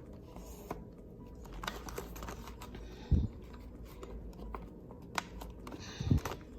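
Quiet handling of a glossy paper chip-bag wrapper around a small bag of potato chips: light paper rustles and ticks, with a soft thump about three seconds in and another near the end.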